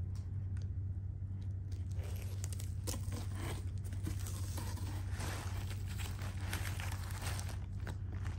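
Tissue paper and foam packing wrap rustling and crinkling as a leather handbag is handled in its box, starting about two seconds in. A steady low hum runs underneath.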